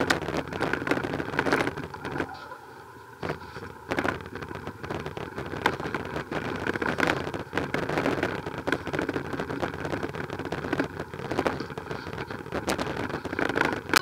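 Noise from riding a bicycle slowly over paving: a steady rush of tyre and wind noise with many irregular knocks and rattles.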